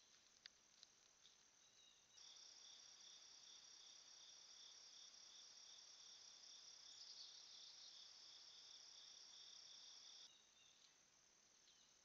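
Faint high-pitched insect trill, steady with a fine pulsing, that starts abruptly about two seconds in and cuts off about ten seconds in; weaker chirping and a few soft clicks sound around it.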